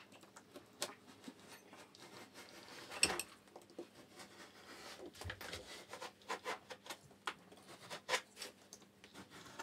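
Faint, irregular scraping and clicking of a utility knife cutting through the paint and caulking along the joint of a timber window architrave, with one sharper click about three seconds in.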